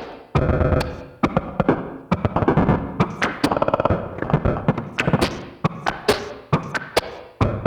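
Bugbrand Chirper 2 Frame modular synthesizer: four modulated voices switching at the same rate, giving a jumping 'hiccup' rhythm of sharp clicks and short pitched, buzzing tones that start and stop irregularly. A heavy little glitch effect from a Hologram Microcosm is laid over it.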